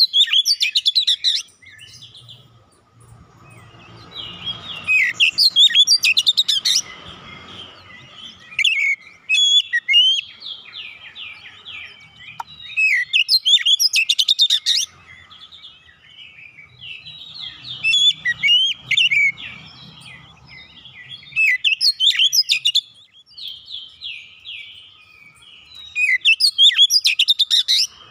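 Oriental magpie-robin singing a loud, varied song of clear whistled notes and fast rattling trills. The song comes in bursts of one to three seconds with short pauses between them.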